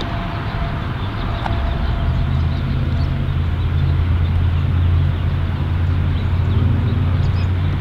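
Steady low hum of a motor vehicle's engine running nearby, over a constant rushing outdoor noise; the hum grows stronger about two seconds in.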